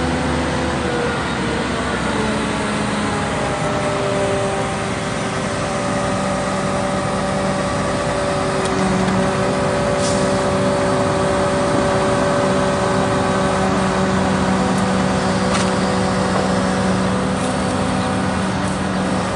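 Kato truck-mounted mobile crane's diesel engine running steadily under load with a droning hum while it works the hydraulics to swing and lower a suspended vehicle. The pitch shifts slightly in the first few seconds, then holds even.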